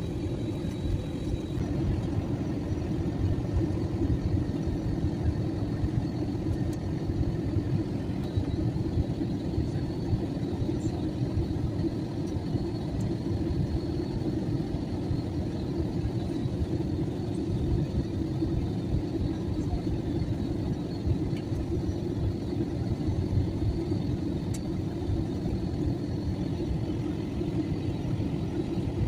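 Steady drone of an airplane in flight heard from inside the cabin: engine and airflow noise as an even low rumble with a faint high whine, unchanging throughout.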